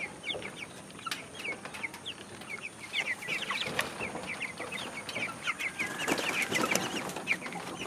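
A flock of young white broiler chickens calling steadily, with many short, high, falling cheeps overlapping one another.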